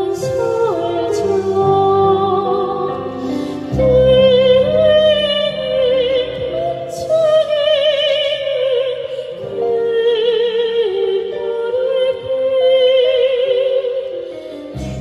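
Two women singing a children's song with wide vibrato, a soprano and a young Korean folk singer, over sustained electronic keyboard chords, amplified through PA speakers.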